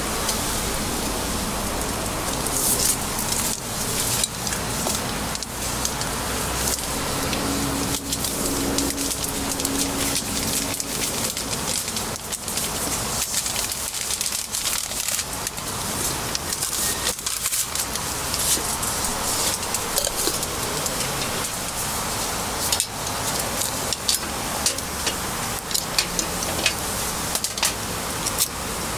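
Gas-fired cast-iron fish-shaped bungeoppang molds cooking: a steady hiss of burner flames and batter sizzling in the hot molds. Frequent sharp metal clicks and clacks from the molds being handled, thickest near the end.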